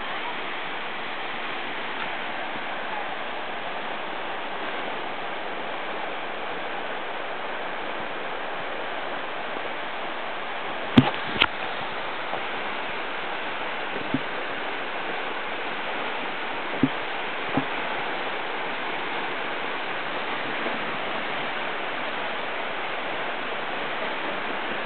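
Steady rushing of Latourell Falls, a tall plunge waterfall. A few short, sharp knocks stand out around the middle.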